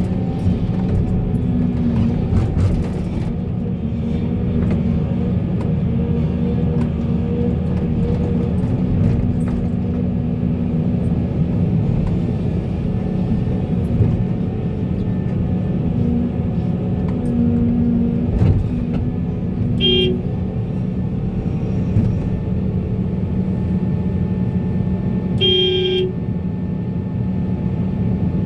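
Heavy-machinery engines running steadily, with two short horn toots: a brief one about two-thirds of the way in and a slightly longer one near the end.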